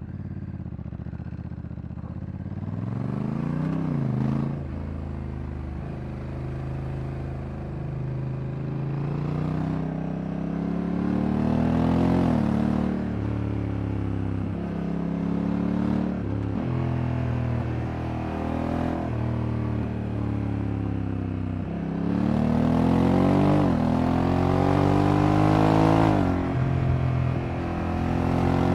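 Honda Africa Twin Adventure Sports DCT's parallel-twin engine pulling through the gears while being ridden. The note climbs and drops with each gearshift, many times over, and is loudest in a hard pull near the end.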